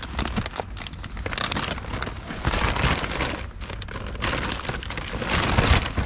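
Plastic shopping bags and food packaging rustling and crinkling as they are handled and rummaged through, in uneven bursts that are loudest about halfway and again near the end.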